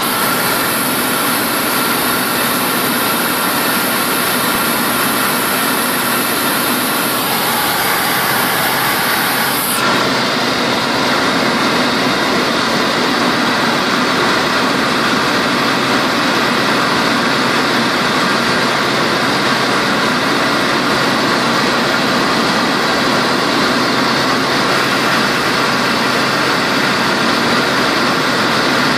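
Tecnam P92 ultralight's piston engine and propeller running steadily in cruise, heard from inside the cockpit as a constant drone. A high hiss on top of it drops away suddenly about ten seconds in.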